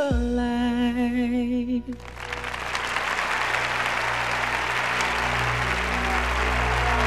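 An R&B ballad ends on a held, wavering sung note over the band, cutting off about two seconds in. An audience then applauds over a low sustained chord.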